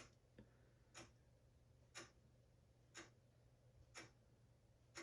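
Faint, evenly spaced ticking, one tick a second, in near silence.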